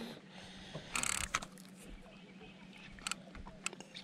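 Fishing reel cranked in short spells while a hooked fish is played on a light rod, giving faint mechanical whirring and a few small clicks over a steady low hum.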